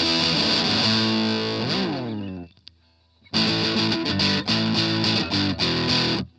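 Distorted electric guitar, an Ibanez RG550 played through an MXR Custom Badass '78 Distortion pedal: held chords ring out, the pitch swoops up and back down, and the sound dies away to silence for about a second. It then comes back in with a choppy, rhythmic riff of short stabs and brief stops.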